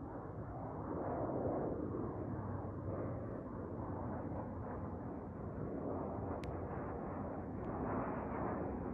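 Airplane flying overhead: a steady rumble of engine noise that swells and eases off over the seconds, with two small clicks in the second half.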